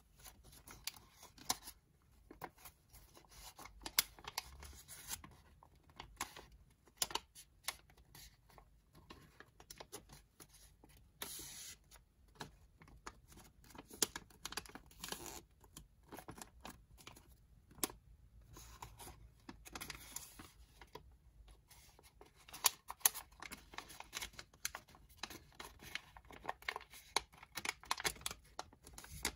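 Square sheet of origami paper being handled and folded by hand: irregular crisp rustles, crinkles and small clicks as the paper is bent and a corner is tucked inward along a crease.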